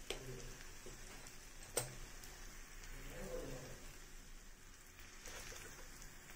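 Kitchen utensils clicking in a quiet room: a light click just after the start and a louder, sharp one about two seconds in, as a spoon and a steel ladle are handled at a clay pot of mango pickle.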